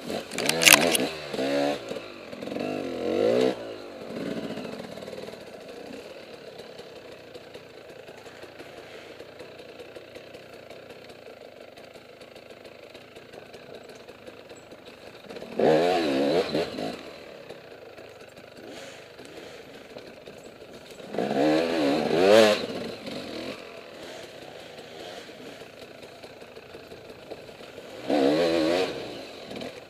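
KTM dirt bike engine taking throttle in four loud bursts: near the start, about halfway, around two-thirds in and near the end. It runs low and steady between the bursts. A sharp knock sounds about a second in.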